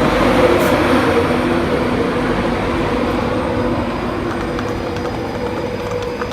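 A train running past at close range: a steady drone with a loud rumble, slowly easing off as it goes.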